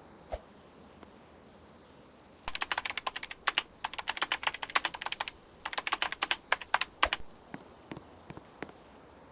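A dog crunching and chewing something crisp: two runs of rapid, sharp crackling clicks, each about two seconds long, then a few single crunches near the end.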